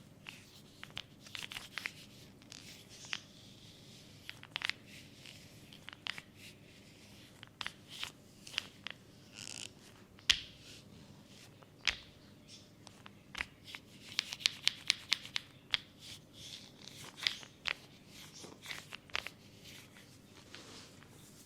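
Hands working oiled skin at close range: scattered wet clicks and crackles, with a quick run of clicks about two-thirds of the way in.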